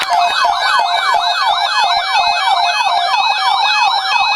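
Electronic yelp siren, a fast repeating falling wail of about four sweeps a second, used as an attention signal ahead of a tornado watch alert.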